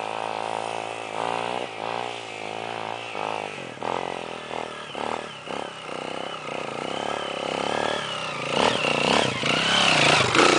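Honda trail bike's single-cylinder four-stroke engine pulling up a steep bare-rock slope, the throttle rising and falling as the rider works it. The engine grows louder as the bike comes right up close near the end.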